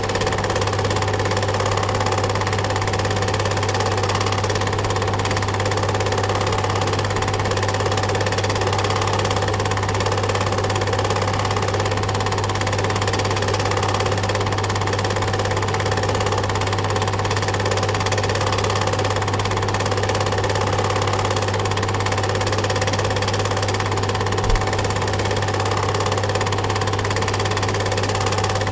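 A film projector running with an even mechanical whir and a low hum, with one brief click near the end.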